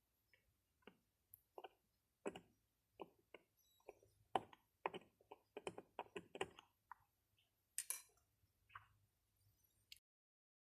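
Light, irregular clicks and taps of small hard objects being handled, coming faster for a few seconds mid-way, then cutting to silence near the end.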